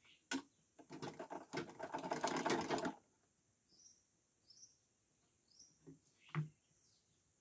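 Sewing machine stitching in a quick, even rattle for about two seconds, then stopping; a couple of soft knocks follow as the fabric is handled, with faint bird chirps.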